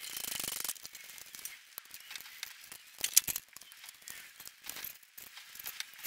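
Quiet, scattered metallic clicks and clinks from a floor jack and a steel wheel rim being fitted onto a truck's hub, opening with a short dense rattle.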